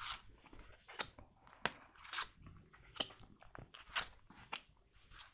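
Tarot cards being slid out of a fanned deck and laid down on the table: a series of crisp card snaps and taps, roughly one every half second to second, with light sliding rustle between them.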